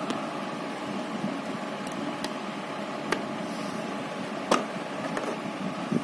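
Steady rushing noise with a few sharp clicks scattered through it, the loudest about four and a half seconds in.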